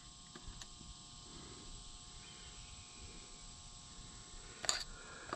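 Faint steady outdoor background of insects droning in several steady tones, with two sharp clicks near the end.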